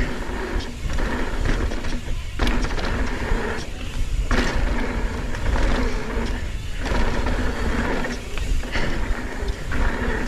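Mountain bike riding down a dirt singletrack: wind buffeting the microphone and tyres running over the trail. A mechanical buzz or rattle from the bike comes in stretches, broken by short lulls every one to two seconds.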